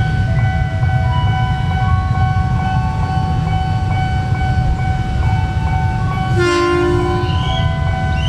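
KRL Commuter Line electric train rolling slowly into the station with a steady low rumble. It sounds its horn once, about six seconds in, for roughly a second.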